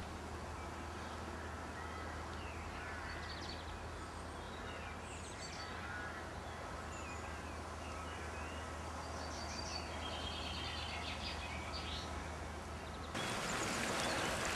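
Small birds chirping and singing, many short calls and trills, over a steady background hiss. About thirteen seconds in, a louder, even rush of flowing floodwater comes in suddenly.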